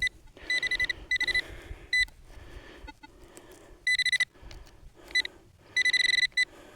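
Metal-detecting pinpointer beeping at one high pitch as it passes over a buried metal target, in bursts of about half a second and shorter blips, with soil rustling between them.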